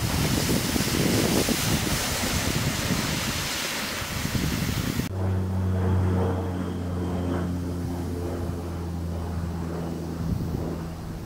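Wind on the microphone and lake waves washing through slush and pancake ice. About five seconds in the sound changes abruptly to a steady low hum of several held tones, which fades out about five seconds later.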